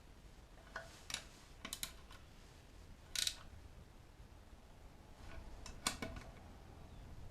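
A handful of irregular sharp clicks and light taps over a low steady hum, the loudest a short clattering tap about three seconds in and a sharp click near six seconds.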